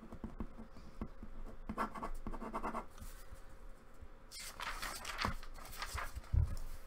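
Pen writing on a sheet of paper: scratchy strokes, densest about four to six seconds in, with a thump near the end.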